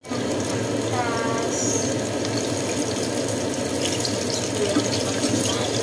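Flour-coated crispy chicken pieces sizzling steadily in hot oil in a wok. About four seconds in, a spatula scrapes the pan as the pieces are turned.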